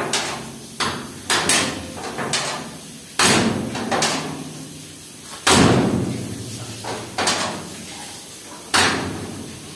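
About seven heavy bangs on car-body sheet metal at irregular spacing, each ringing briefly, the loudest about five and a half seconds in.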